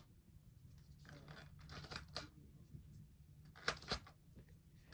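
Faint handling noise from a Nerf disc blaster being loaded with its plastic discs: scraping rustles, then two sharp plastic clicks close together near the end.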